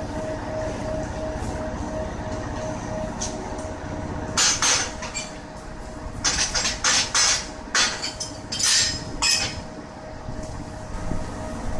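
JR EF81 electric locomotive running light with a low rumble and a faint pulsing tone. From about four seconds in come around ten sharp metallic clanks, some in quick pairs.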